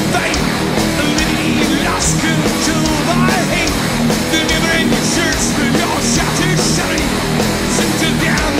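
Heavy metal music: distorted electric guitars and drums, with a lead line gliding up and down over them.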